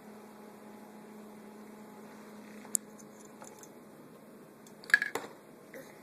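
Quiet room tone with a steady low hum, broken by a sharp click nearly three seconds in and a brief clatter of clicks around five seconds.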